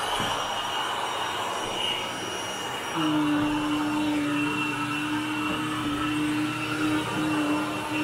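Upright vacuum cleaner running as it is pushed over carpet. About three seconds in, a steady low hum joins the motor noise and holds.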